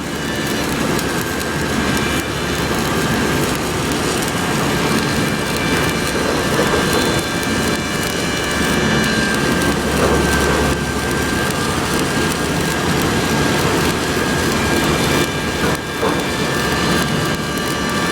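Electric arc welding: the arc crackles and sizzles steadily and densely, like heavy rain, with brief dips in level.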